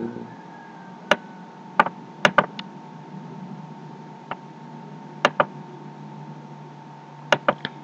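Computer mouse clicks: about ten sharp clicks, some in quick pairs, scattered over a faint steady low hum.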